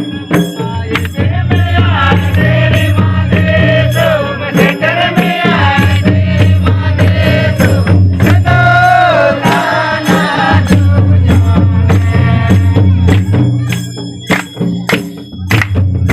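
A Mundari devotional song (bhajan) performed live: voices singing over regular percussion strokes and a low sustained drone. The singing is strongest from about two to ten seconds in, and the beat carries on through.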